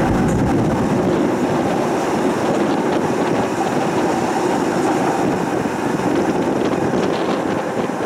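Tram in motion, heard from inside the car: a steady rumble of wheels running on the rails, with light clicking in the second half.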